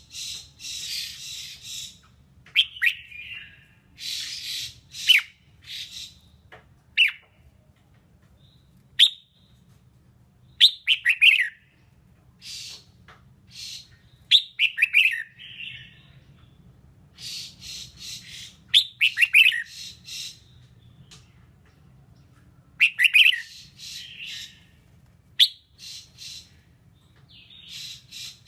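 Red-whiskered bulbul singing in short, bright phrases every second or two, mixed with harsh scratchy chatter, over a faint low hum.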